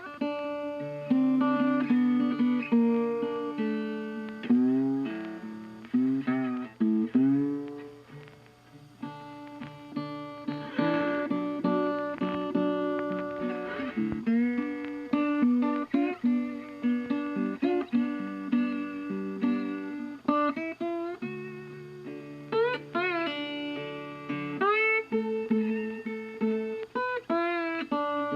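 Background music: plucked guitar melody with sliding notes over held chords.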